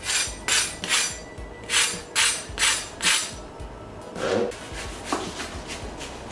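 A knife blade scraping and tapping across the pan-crisped crust of a toasted stuffed tortilla wrap. There are about seven short crunchy scrapes in two quick runs, then a couple of softer knocks.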